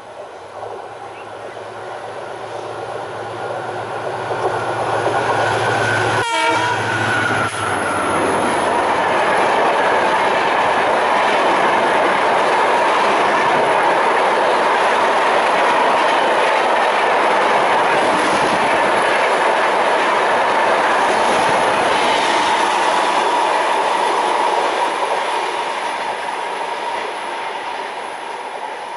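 EMD WDG4 diesel locomotive passing at speed with its horn sounding. The horn and engine hum swell as it approaches and drop away as it passes, about six seconds in. Then the coaches of a long passenger train rumble and clatter past on the rails for some fifteen seconds, fading near the end.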